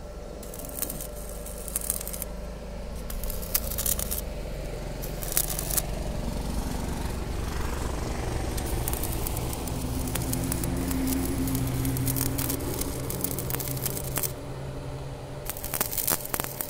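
Stick-welding arc crackling in bursts of a second or two as the electrode is struck on steel rebar to join column bars, over a low steady hum.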